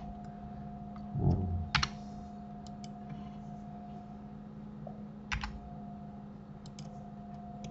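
A few scattered sharp clicks of computer keyboard keys and mouse buttons, over a steady hum.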